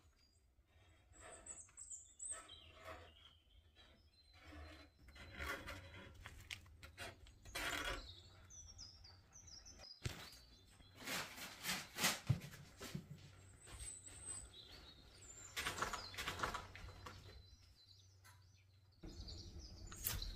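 Small birds chirping in short high calls, with bursts of rustling and handling noise in between.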